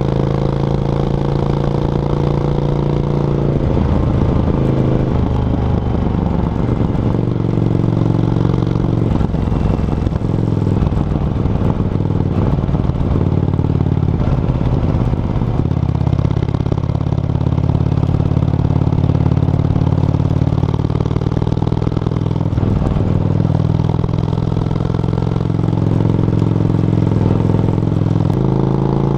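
Yamaha XV535 Virago's V-twin engine running through a SilverTail K02 aftermarket exhaust while riding. The engine note is loud and steady, breaking and shifting in pitch a few times.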